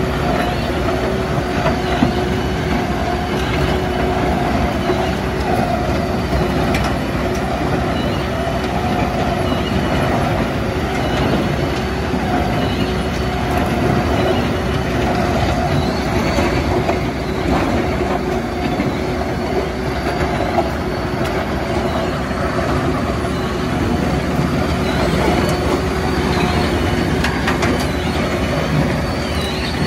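Tracked impact crusher running under load, a steady diesel and rotor drone with continuous clattering and rattling of rubble being broken and carried off on its conveyor, with a Cat excavator's diesel working alongside.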